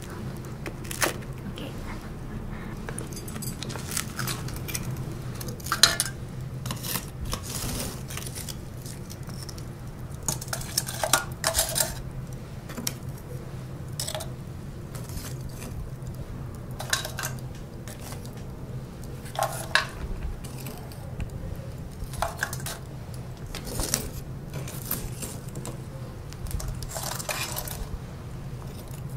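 Scattered light clinks and clatters of metal on ceramic and charcoal: a spoon scraping a porcelain bowl, then long metal tongs moving pieces of charcoal in a hibachi and a pot. A steady low hum runs underneath.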